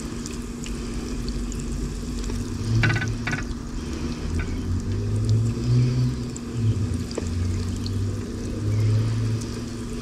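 Crumbed fish pieces frying in hot oil and butter in a pan, with faint crackling sizzle over a steady low hum and intermittent low rumbling.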